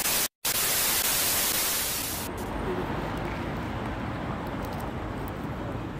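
Hiss of TV static from a glitch transition, broken by a short dropout just after the start. It cuts off suddenly about two seconds in, leaving a quieter background of street noise.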